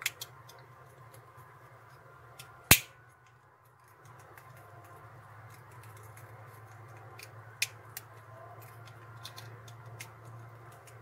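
Utility knife blade cutting and scraping at a plastic bottle cap to widen holes in it. Scattered small clicks, one much louder sharp click a little under three seconds in, over a steady low hum.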